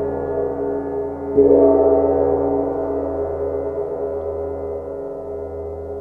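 20-inch UFIP Rough Series cymbal ringing with a gong-like wash of many sustained tones. It is struck again about a second and a half in, swells, then slowly fades.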